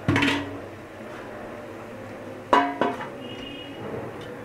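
Two ringing metal clanks of cookware: one right at the start and a louder one about two and a half seconds in, each ringing briefly, over a low steady hiss.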